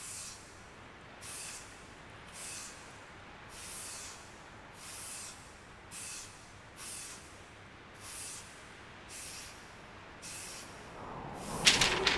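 Short hissing puffs repeating about once a second, ten or so in a row. Near the end come a few sharp, loud clacks, the loudest sounds.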